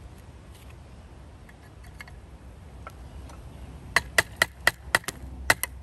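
A quick run of about eight sharp taps or knocks, roughly four a second, starting about four seconds in: a tool striking a part of the old fan to work it loose.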